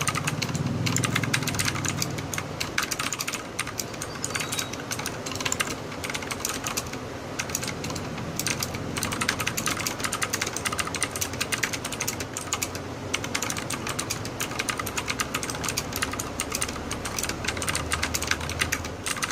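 Fast, continuous typing on a Redragon Usas mechanical keyboard with clicky Outemu Blue switches and PBT keycaps: a dense, unbroken stream of sharp key clicks.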